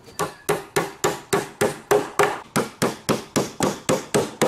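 Hammer driving a nail into the wooden frame of a lawn chair, with quick, even blows at about four a second.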